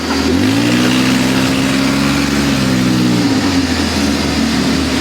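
ATV engine revving up about half a second in, held at higher revs, then easing back toward idle just past three seconds.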